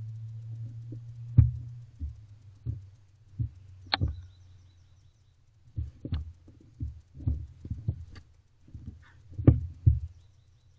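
Barn owlets shifting about on the wooden floor of a nest box, making irregular knocks, thumps and scrapes. A steady low hum sits under the start.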